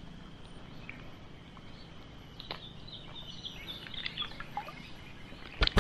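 Small birds chirping, a cluster of short high calls in the middle, over a low, even outdoor background. A short, sharp sound near the end.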